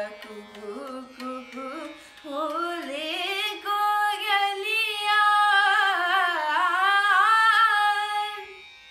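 A girl singing solo with no accompaniment, her notes wavering and turning. The voice starts lower and broken, climbs after about two seconds into long held high notes, and stops shortly before the end.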